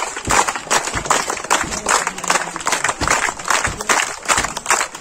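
A group of schoolchildren clapping their hands in welcome: quick, fairly even applause of many hands together.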